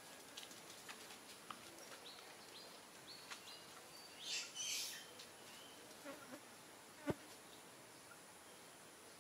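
Quiet outdoor ambience with faint insect buzzing, scattered small clicks and short high chirps, a brief rustling hiss about halfway through, and one sharp knock about two seconds before the end.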